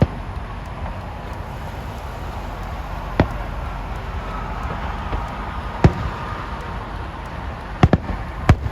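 Aerial fireworks bursting in scattered, sharp bangs, about six of them, with a quick pair near the end, over a steady background rumble.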